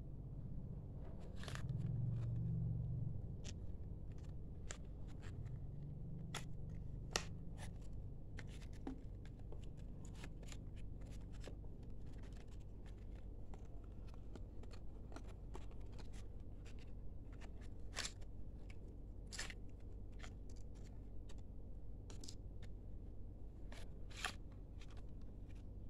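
Cardboard and paper packaging of a smartphone box being handled: scattered clicks, taps and rustles as a white card tray and paper inserts are opened and pulled apart, over a low steady hum.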